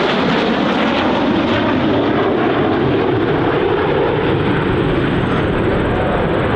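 Jet noise from the Frecce Tricolori's Aermacchi MB-339 jets flying overhead in their display: a loud, steady rushing sound with no clear rise or fall.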